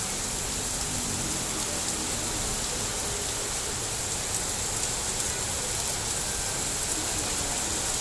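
Heavy tropical downpour falling on a road and pavement: a dense, steady hiss of rain.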